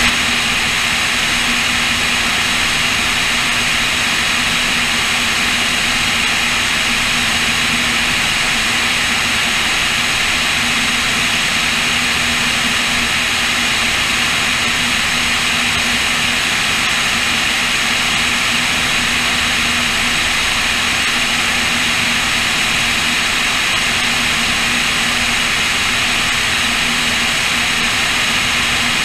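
Cessna O-2A push-pull twin in cruise flight: the steady drone of its two piston engines and propellers, mixed with airflow rushing over a camera mounted under the wing. A constant low hum runs under the rushing noise, with no changes in power.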